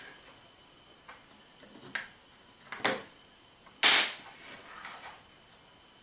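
AAA batteries being pressed into the plastic battery compartment of a toy remote-control transmitter: a few light clicks about one, two and three seconds in, then a louder handling noise lasting about half a second near four seconds in.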